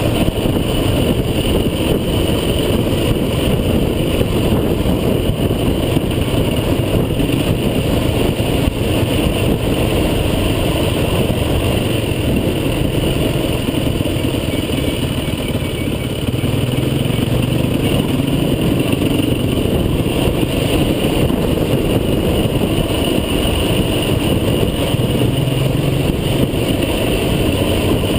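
Off-road vehicle engine running steadily while driving, with a dense, continuous rumble.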